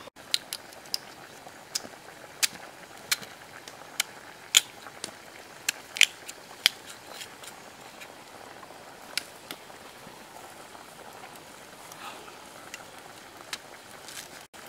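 A pan of soup boiling over a wood fire, a steady bubbling hiss with scattered sharp pops and clicks, most of them in the first half.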